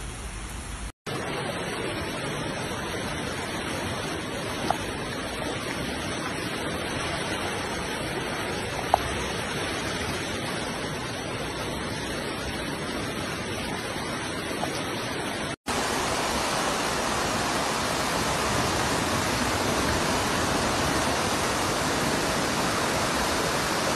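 Steady rush of floodwater flowing along a street. After a short break, a louder, steady rush of floodwater pouring over a wall in several cascades.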